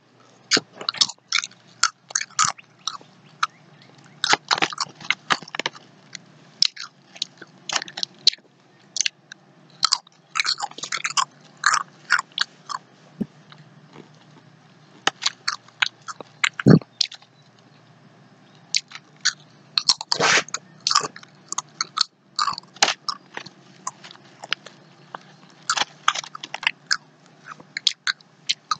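Pringles potato crisps bitten and chewed close to the microphone: clusters of sharp crunches, one after each bite, with short pauses between.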